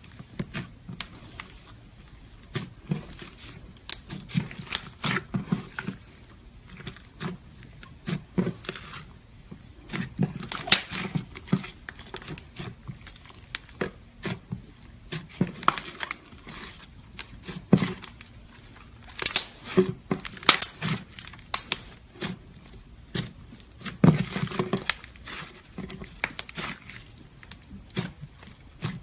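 Slime mixed with clay being worked by hand, giving irregular sticky pops, clicks and crackles.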